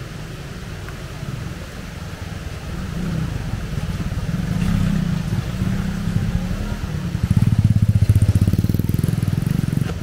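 A small motorcycle engine running as the bike rides past, growing louder and loudest near the end with a fast, even putter.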